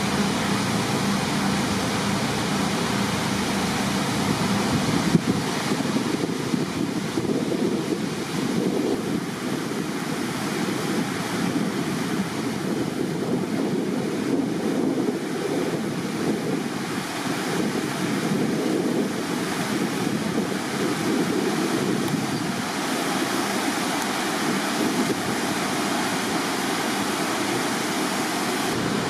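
Steady rushing of water, with a low hum for the first few seconds.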